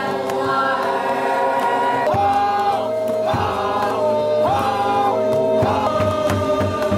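Ao Naga tribal singers chanting in chorus, long held notes that step up and down in pitch about once a second. A low drone joins about two seconds in, and low regular beats come in near the end.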